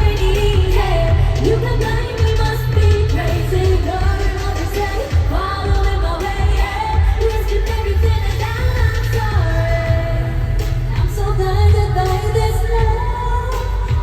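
Pop song from a girl group singing live over an arena sound system, with sung melody over a heavy, steady bass beat.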